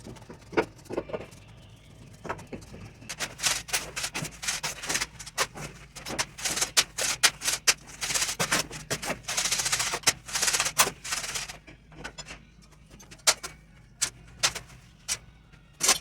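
Irregular scraping and knocking of a shovel working wet concrete into a steel base, in quick runs of sharp strokes that are busiest in the middle and thin out near the end.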